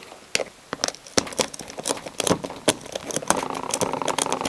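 Plastic-insulated electrical wires being handled and bent between fingers right up against the microphone: irregular crackling clicks, with a steadier rubbing rustle in the last second or so.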